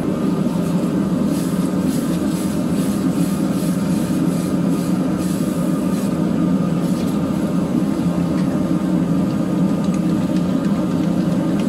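Propane gas forge burner running with a steady, loud rushing noise. Partway through, hot iron is quenched in a bucket of water, hissing and bubbling.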